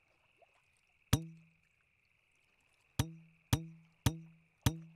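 Hollow plastic Wiffle ball bat striking a head: a single bonk about a second in, then four more in quick succession about half a second apart, each a short hollow knock that rings briefly.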